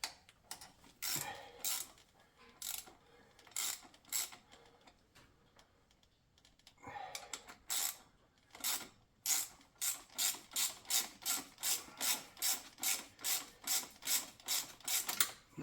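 Hand ratchet loosening a fuel rail bolt, its pawl clicking on the back-swings. There are a few scattered clicks at first, then from about seven seconds in a steady run of roughly two to three clicks a second.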